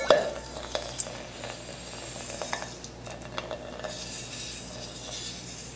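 Potassium metal reacting on the surface of water in a glass beaker: a fizzing hiss scattered with small pops and crackles as the metal gives off hydrogen.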